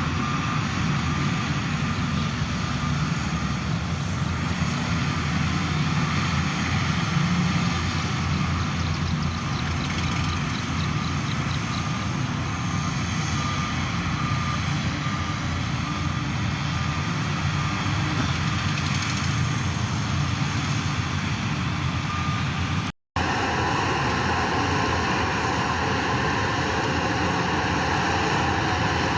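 Heavy diesel earthmoving machinery, a bulldozer and dump trucks, running steadily under load, with a faint repeating beep through the first third. The sound cuts out abruptly for a moment about three-quarters of the way through, then resumes.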